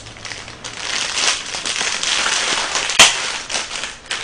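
Clear plastic snack bag crinkling as it is handled and pulled open by hand, with one sharp snap about three seconds in.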